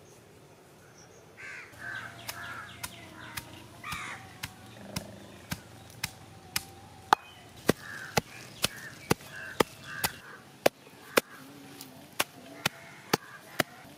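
Stone pestle pounding garlic cloves and cumin seeds in a stone mortar: sharp, even knocks about twice a second, starting about two seconds in. Crows caw in the background.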